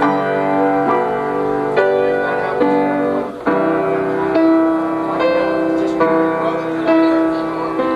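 Keyboard instrument playing sustained chords without singing. The chord changes a few times in the first half, then one chord is held for several seconds.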